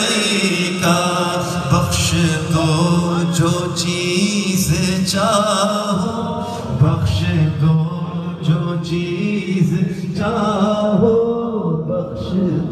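Unaccompanied male chanting of an Urdu devotional salam to the Prophet, a sung recitation held on long, wavering notes.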